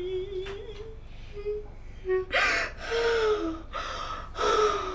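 A woman crying: a thin whimpering tone trails off in the first second, then comes a run of three gasping, breathy sobs from about two seconds in.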